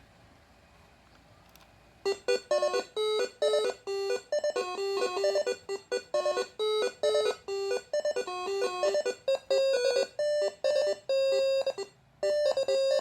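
Six-trumpet basuri air horn driven by a Moreno MS7 module, playing a fast melody of short staccato notes that starts about two seconds in.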